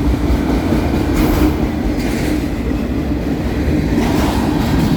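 Freight train cars rolling past, a steady loud rumble of wheels on rail.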